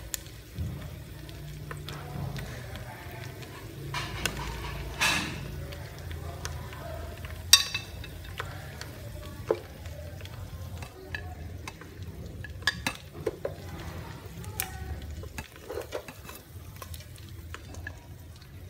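Chopsticks lifting pieces of cooked chicken out of a metal cooking pot onto a porcelain plate: scattered clicks and knocks of the chopsticks against the pot and plate, the sharpest clink about seven and a half seconds in, over a low steady rumble.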